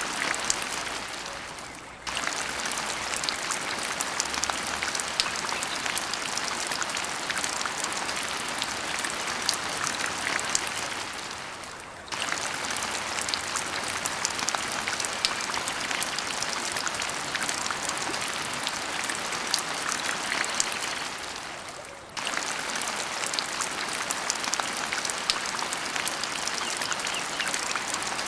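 Rain falling: a steady hiss dense with small ticks of drops. It fades down and cuts sharply back in about every ten seconds, like a repeated loop.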